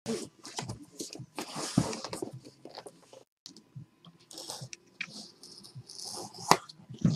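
Packaging being handled and opened by hand: irregular crinkling and rustling with many small clicks and taps, and one sharp click about six and a half seconds in.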